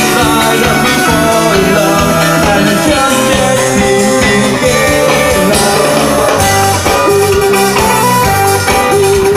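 Live band playing loud music, with guitar and a singing voice.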